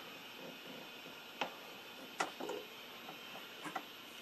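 A few faint, sharp clicks and ticks over a low steady hiss, as a multimeter test probe is picked up and handled around the television chassis.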